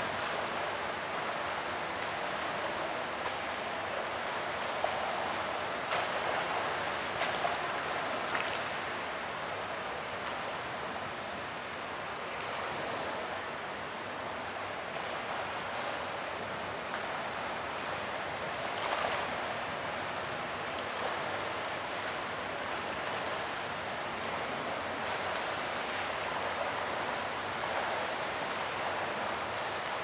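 Fountain water jets splashing and rushing, a continuous even water noise with a few brief louder surges.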